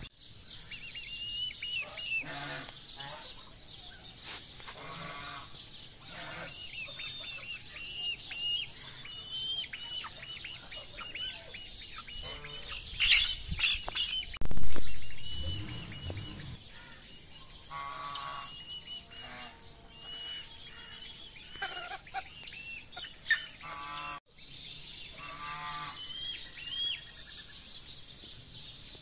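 Aseel chicks peeping over and over in short high notes while hens give lower calls, as the flock settles on its roost. A brief flurry and a low thump about halfway through are the loudest moment.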